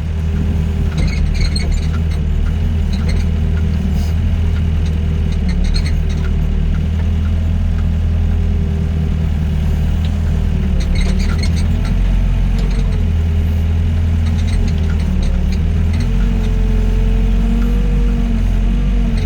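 Doosan DX55 mini excavator's diesel engine running steadily under working load, with a wavering hydraulic whine that rises and falls as the arm and bucket move. Scattered light clicks and clanks come in clusters.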